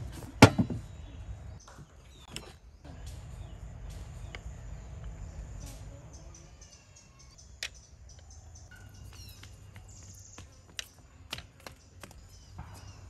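Birds chirping in short gliding calls over a low steady rumble, with a sharp clink about half a second in and a few light taps scattered through.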